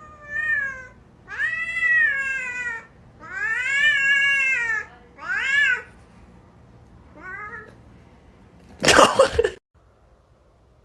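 A domestic cat meowing in five long, drawn-out yowls that rise and fall in pitch, the last one faint. About nine seconds in there is a short, loud noisy burst.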